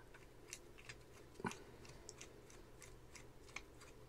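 Faint, irregular small clicks and ticks of a small screwdriver turning a screw into the aluminium base of a headphone stand, with one slightly louder click about a second and a half in.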